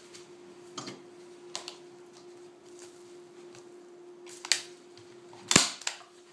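Hand staple gun firing twice, about a second apart near the end, two sharp snaps driving staples into the canvas on the wooden stretcher bar, with light handling clicks before them and a faint steady hum throughout.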